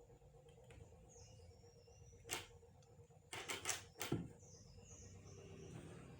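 A few short, sharp knocks: one about two seconds in, then a quick run of about four more a second later, over a faint steady hum.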